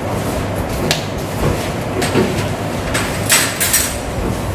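Metal clatter and scraping of hand tools at an engine lathe: chips being brushed off the tool post and carriage, then the steel chuck key being picked up. The loudest clanks come in a cluster a little over three seconds in, over a steady low hum.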